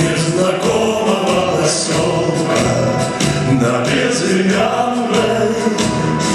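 Male vocalist singing a song live into a microphone over band accompaniment.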